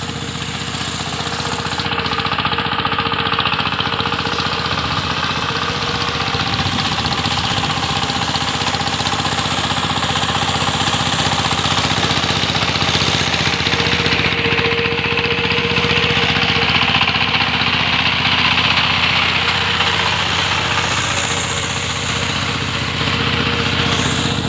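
ACI R40 two-wheel power tiller's engine running steadily under load as its blades churn a flooded, muddy paddy field.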